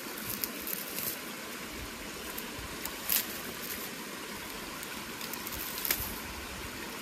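Steady rush of running water, with a few short clicks or snaps breaking through it.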